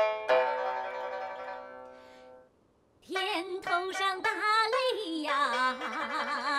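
Traditional Chinese music. A plucked string note rings and fades away, and after a brief silence a singing voice with sliding, wavering pitch comes in over plucked-string accompaniment.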